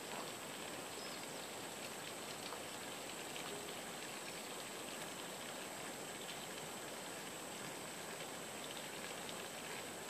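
Steady rural outdoor ambience: an even hiss with a thin, high, unbroken whine running through it.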